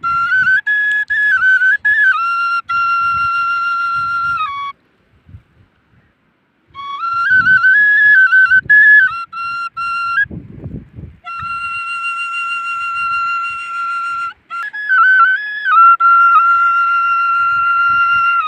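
A flute playing a slow melody in three phrases, holding long notes with quick ornamental turns between them, with short pauses about five and ten seconds in.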